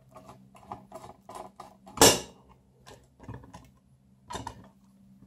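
Screwdriver working the screws out of an LED floodlight's aluminium back housing: a run of small clicks and scrapes, with one louder knock about two seconds in.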